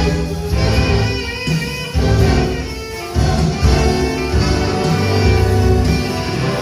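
Orchestra playing, violins prominent over a strong bass line, the chords changing about once a second.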